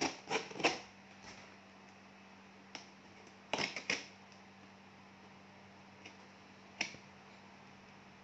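Plastic stretch wrap on a cardboard box crinkling and snapping as it is cut and pulled with a blade: short crackles in clusters at the start and about three and a half seconds in, with a few single clicks between. A faint steady hum sits underneath.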